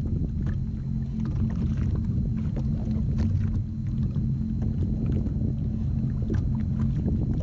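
Sea-Doo jet ski engine idling with a steady low hum.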